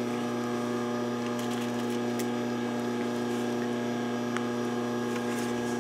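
Steady electrical mains hum, a buzzy drone with many even overtones, under a few faint ticks from fabric and pins being handled.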